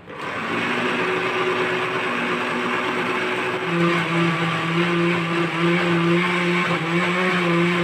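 Electric blender motor switched on and running steadily, grinding soaked moong dal into a smooth batter in its jar. Its hum strengthens about four seconds in.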